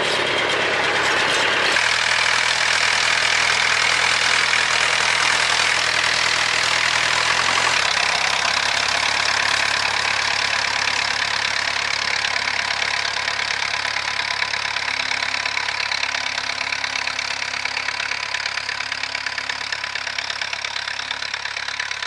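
McCormick B275 tractor's four-cylinder diesel engine running steadily, its note shifting about two seconds in and dropping lower about eight seconds in.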